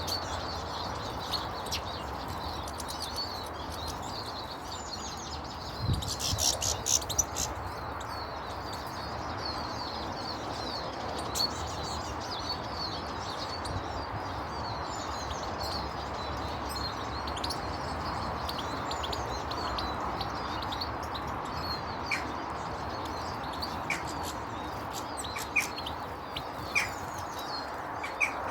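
Small garden birds chirping and twittering continuously, many short high calls overlapping, with a louder flurry of calls about six to seven seconds in. A steady background hiss runs underneath.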